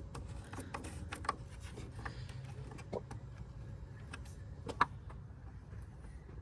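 Scattered small clicks and taps of a socket and bit working a screw, with the sharpest tap about three quarters of the way through, over a faint low steady hum.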